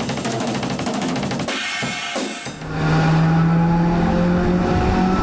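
Music: a drum kit playing busily, then a little over two and a half seconds in, a loud held note or chord rings out over the drums.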